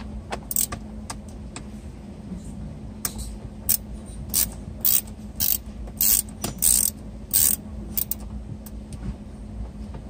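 Hand ratchet clicking in short bursts, about two back-strokes a second for several seconds from about three seconds in, as a T25 Torx screw is backed out of the steering column trim. A steady low hum runs underneath.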